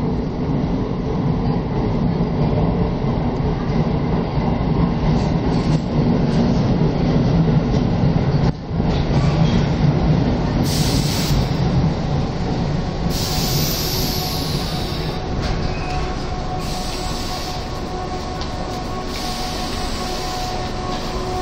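Tobu electric commuter train pulling into the platform with a heavy rumble. Several short hisses follow as it comes to rest, along with a steady tone.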